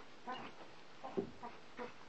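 Dogs at play giving a series of short, faint yips while chasing each other, one dropping in pitch about a second in.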